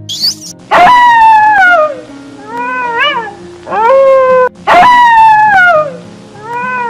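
A cat meowing repeatedly, about five loud meows: two long calls that slide down in pitch and shorter ones that rise and fall. Soft background music plays underneath.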